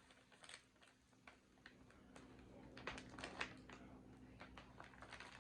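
Faint, irregular crisp clicks and crackles of freeze-dried candy being crunched and chewed.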